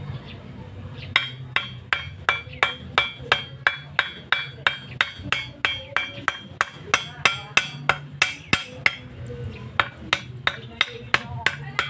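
Hammer striking the top of an upright 32 mm galvanised iron pipe, used as a punch to cut a hole through a leather cup gasket for a deep-well ejector pump. The blows come steadily at about three a second, each with a short metallic ring. They start about a second in and pause briefly near the end before resuming.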